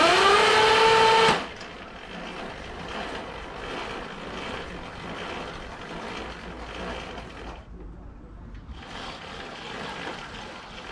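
Electric starter motor of a homemade roller starter under a Velocette 500's rear wheel, whining loudly and rising in pitch for about a second and a half. It then drops to a quieter steady mechanical whirr and rattle of the rollers and drive chain, which stops briefly near eight seconds and starts again. The motor is not powerful enough to turn the engine over in gear.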